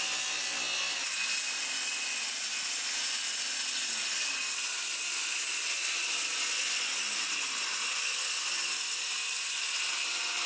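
Corded circular saw running steadily as it cuts along the overhanging ends of composite deck boards, with a faint high whine over the cutting noise.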